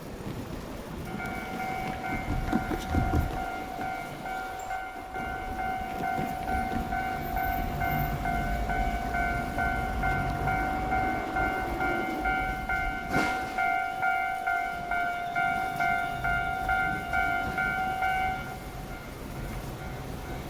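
Japanese railway level-crossing warning bell sounding a rapid, steady electronic ding over the low rumble of a passing train. The bell stops near the end.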